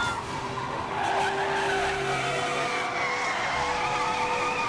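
Car tires squealing in a long, wavering skid as cars are driven hard, over the sound of a car engine.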